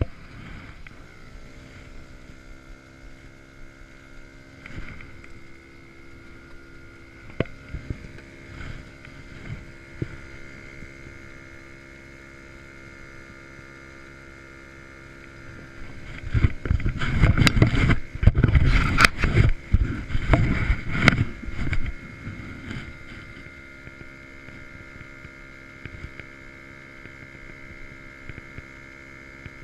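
Portable air compressor spinning up and then running with a steady hum, inflating a freshly plugged tire. A stretch of loud, uneven noise over it for several seconds about halfway through.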